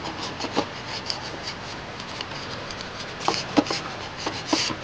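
Light rubbing and scraping by hand, with scattered small clicks and taps that come more often in the last second and a half.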